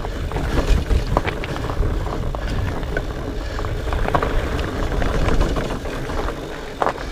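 Specialized Fatboy fat bike ridden over a rocky trail: a steady low rumble of wind on the microphone, with scattered clicks and knocks from the tyres and bike rattling over rocks.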